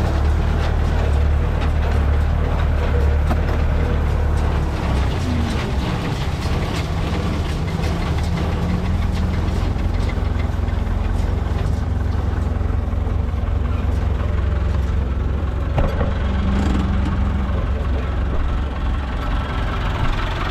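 Massey Ferguson 575 tractor's four-cylinder Perkins diesel running steadily, its low note shifting slightly about four and a half seconds in, with a faint rapid clatter over it.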